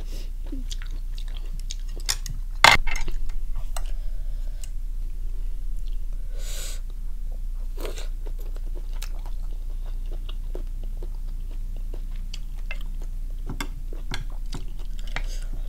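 Close-miked chewing and crunching of a mouthful of squid and salad, with many small wet mouth clicks and one sharp louder click about two and a half seconds in.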